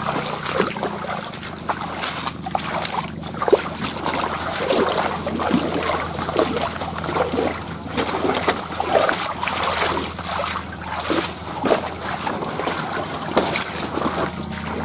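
Footsteps wading through a shallow stream: irregular splashing and sloshing of water with each step, continuing throughout.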